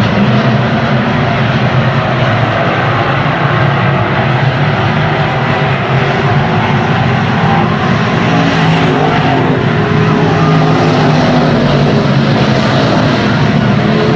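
Stock car engines running hard at racing speed, loud and steady.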